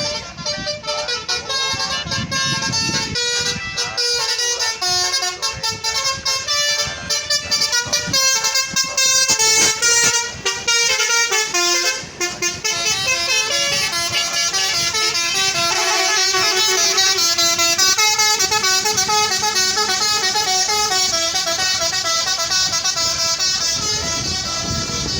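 Tour bus "telolet" multi-tone horn playing a long melody of quick, stepped notes without a break, louder from about a third of the way in.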